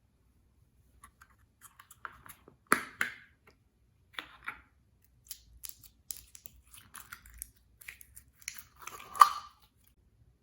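Slime being handled and worked by hand, giving irregular sticky clicks and crackles, with two louder pops, one about three seconds in and one near the end.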